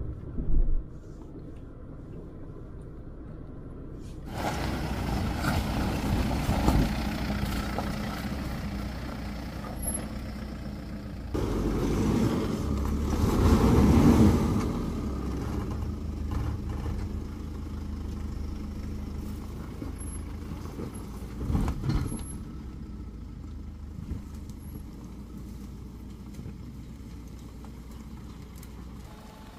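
Force Gurkha 4x4's 2.6-litre diesel engine running at low revs as the vehicle crawls over a muddy, rocky track, with its tyres grinding over mud and stones. It is heard from inside the cabin at first and is loudest about halfway through.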